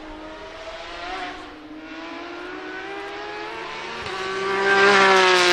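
Porsche 911 RSR's 4.0-litre flat-six race engine running past, with revs climbing. About four seconds in, it gives way to the 911 GT3 Cup's 4.0-litre flat-six under hard throttle, which is much louder.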